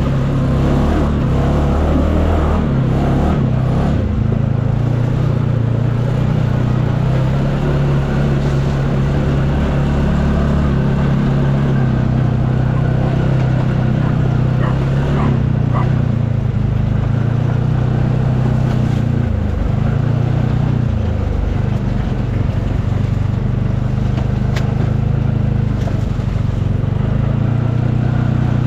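UTV engine running steadily under way, its pitch dipping briefly about two-thirds of the way through and then coming back up.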